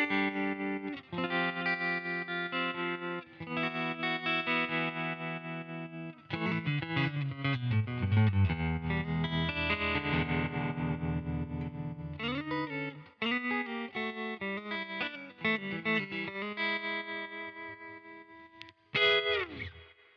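Fender Stratocaster electric guitar played through a UAFX Dream 65 Reverb amp pedal, with a lightly driven tone. It plays held chords and a falling run of single notes, ends on a quick slide down in pitch, then cuts off.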